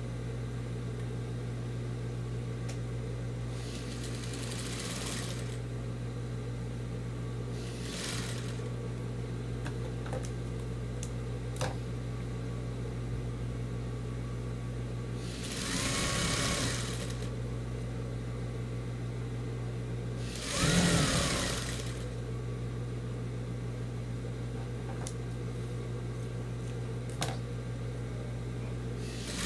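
Sewing machine running steadily as it stitches denim and cotton fabric strips, its motor giving a constant hum. Louder noisy swells come twice in the second half, the second one the loudest.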